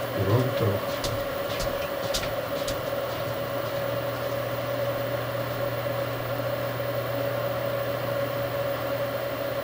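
Steady hum with a thin higher whine from a bench power supply delivering about 3.5 A at 13 V to an LED panel. A few light clicks come in the first three seconds.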